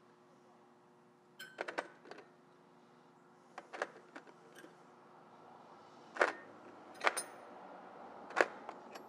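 Chrome-plated steel combination wrenches clinking against one another and their plastic case tray as they are handled: scattered sharp clicks, some with a brief metallic ring, the three loudest in the second half.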